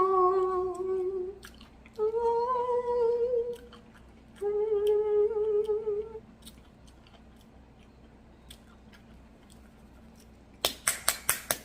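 A woman humming three long, held closed-mouth "mmm" notes of enjoyment while eating, the second a little higher. Near the end comes a quick run of about six sharp clicks.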